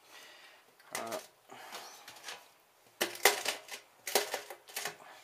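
Old glass bottles clinking as they are knocked against and set down in a stainless steel sink: several sharp clinks, the loudest about three seconds in.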